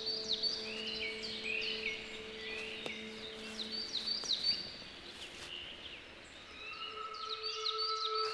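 Woodland songbirds singing, in repeated runs of quick falling chirps that thin out for a moment past the middle. Soft steady held tones sound underneath.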